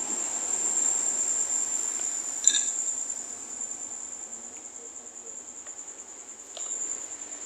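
Crickets chirping in one steady, high, continuous trill, with a short click about two and a half seconds in.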